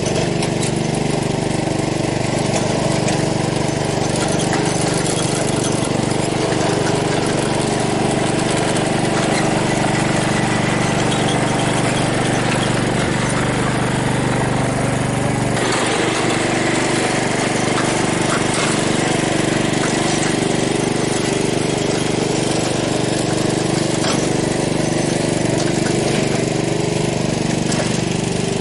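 Small gasoline engine running steadily just after starting, its sound changing about halfway through.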